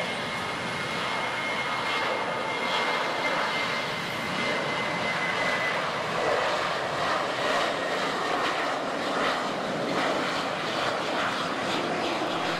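Airliner's jet engines at takeoff power during the takeoff roll: a steady rushing noise with a thin high whine that fades out about halfway through.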